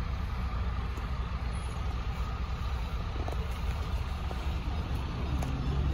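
Steady low rumble of road vehicles.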